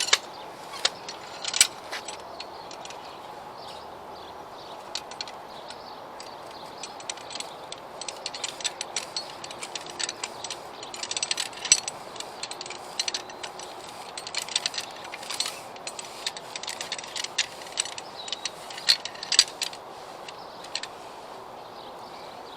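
Irregular clicks and light metallic rattling from a greens plug cutter being worked to take a turf plug, in scattered clusters over a steady outdoor background.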